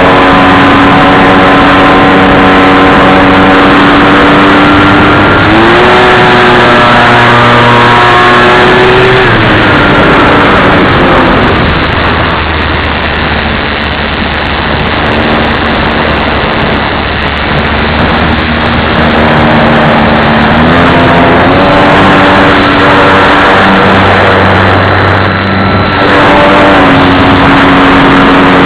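RC plane's motor and propeller running loud, stepping up in pitch about five seconds in and dropping back a few seconds later as the throttle changes. Midway the tone gives way to a rushing noise, then climbs back in pitch again.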